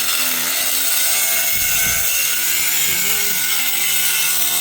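A power tool running steadily under load: a harsh hiss with a wavering whine beneath it.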